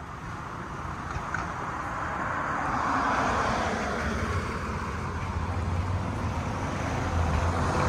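Road traffic on a city street, a steady noise of passing vehicles with a low engine rumble. It swells about three seconds in and again near the end as vehicles go by.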